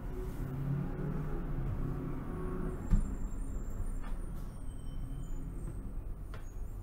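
Low background rumble with a single knock about three seconds in.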